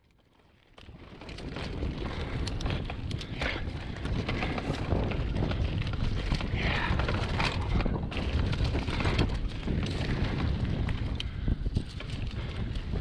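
Wind buffeting the microphone over the rumble and rattle of a mountain bike rolling fast down a rocky dirt trail, with many scattered clicks and knocks from the tyres and frame. It fades up over the first second or so.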